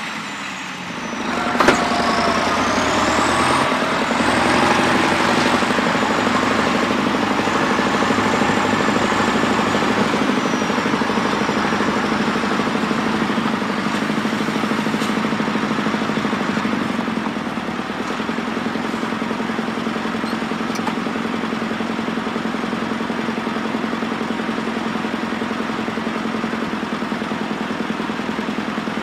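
Heavy tractor diesel engines working under load as a wheeled tractor is pulled out of deep mud. There is a sharp knock just under two seconds in, then the engine revs with a rising pitch for a few seconds before settling into steady running.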